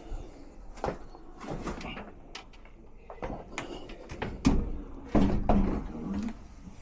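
Irregular knocks, clicks and scrapes of equipment being handled, with a loud knock about four and a half seconds in and a louder stretch of clatter just after it.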